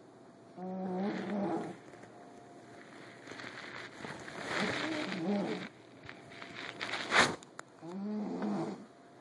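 Snoring: three pitched snores at a steady breathing pace, about three and a half seconds apart. A single sharp click about seven seconds in is the loudest sound.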